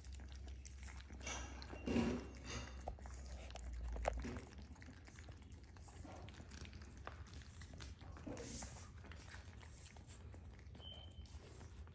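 Shih Tzu puppies eating from small ceramic bowls: faint chewing and a run of small clicks, with one louder short sound about two seconds in.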